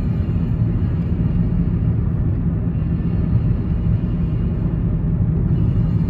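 Steady low rumble of a car driving at highway speed, heard from inside the cabin: road and tyre noise with no separate events.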